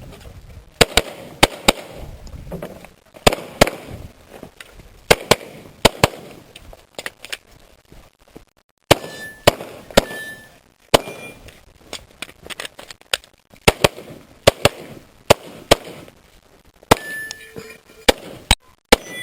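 A 9mm Glock 19 pistol firing a practical-shooting stage: quick strings of sharp shots separated by short pauses, with a longer break about halfway through.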